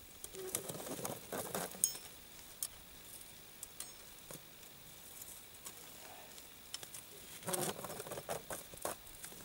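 Steel body-grip beaver trap and its chains clinking and jangling as it is lifted and handled, in two bursts of rattling: one in the first two seconds and one near the end, with a few single ticks between.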